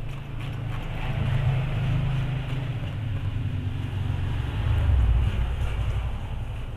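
A low, steady engine-like rumble that swells about five seconds in, like a vehicle going by, over a faint rubbing hiss of a cloth pad pressed and slid across polarizer film on an LCD panel.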